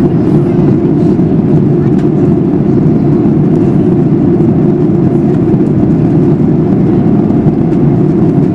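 Steady cabin roar of a Boeing 737-800 in cruise: its CFM56 engines and the airflow over the fuselage heard from inside the passenger cabin as an even, deep rumble.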